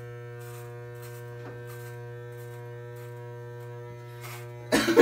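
Corded electric hair clippers running with a steady buzz as they are pressed against the scalp to cut hair. A brief louder sound cuts in near the end.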